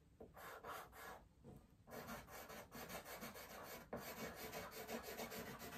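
Charcoal pencil scratching on drawing paper in quick short strokes, faint, with a brief break about a second and a half in.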